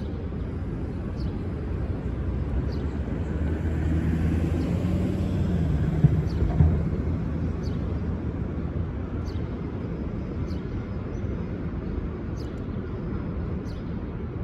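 Steady low rumble of a New York subway train running away down an open cut, with a hum that swells about four seconds in and two sharp knocks around six seconds.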